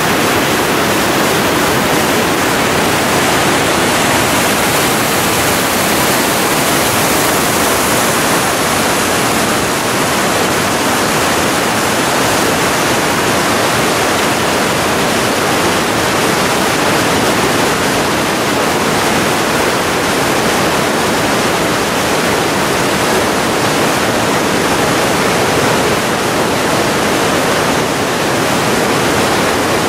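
South Boulder Creek's water rushing over rocks: a steady, unbroken rush.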